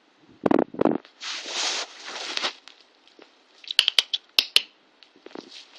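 Two cats playing rough: two dull thumps near the start, then about a second and a half of scratchy scrabbling, then a quick run of sharp clicks, like claws and paws skidding and tapping on the floor.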